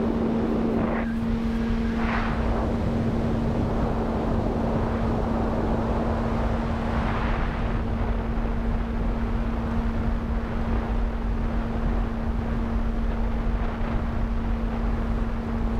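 Skyhunter RC airplane's battery-powered electric motor and propeller running steadily at cruise power, a constant one-pitch hum over a rush of air noise on the onboard camera's microphone.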